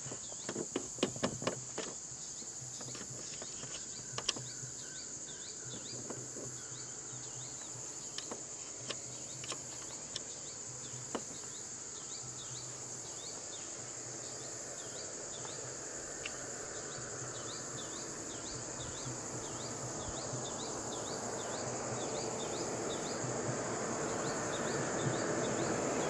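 Steady high-pitched insect drone with a pulsing buzz over it, and short bird chirps repeating over and over; a few sharp clicks sound about a second in. A rushing noise swells over the last several seconds.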